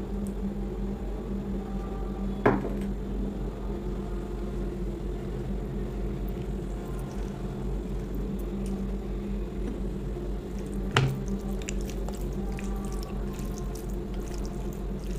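Wet, squishy eating sounds of curry and rice being eaten, over a steady low hum, with two sharp knocks standing out, one early and one about two-thirds of the way through.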